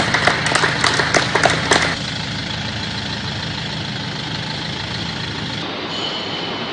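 Applause with sharp individual claps for about two seconds, then a steady vehicle engine idling, likely the newly assembled minibus.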